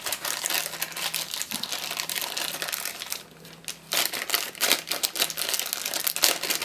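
Thin clear plastic bag crinkling as hands unwrap a stepper motor from it. There are two spells of crackling, with a short lull about three seconds in.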